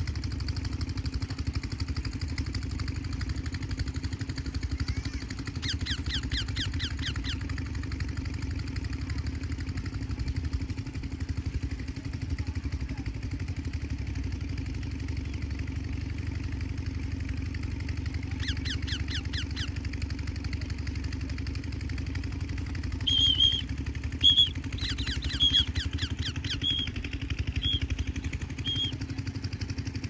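An engine runs steadily with a low hum. Over it come shrill bird calls: short bursts of rapid chattering, then a run of short, loud squawks near the end.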